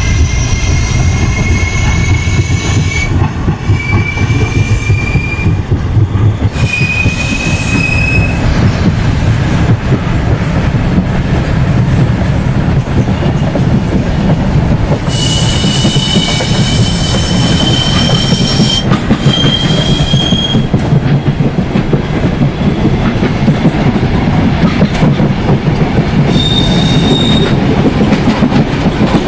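Express train running at speed on rails with a loud steady rumble, and high-pitched steel wheel squeal that comes and goes several times, each squeal rising slightly in pitch.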